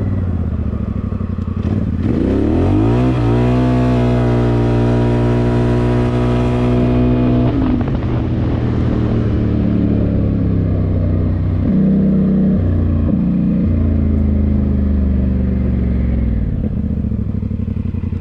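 Polaris Sportsman XP 1000 S ATV's parallel-twin engine on a full-throttle pull in high range: the revs climb about two seconds in, then hold at one steady high pitch while the CVT clutch shifts up, and drop suddenly as the throttle is released. It then runs on at lower revs, easing off near the end.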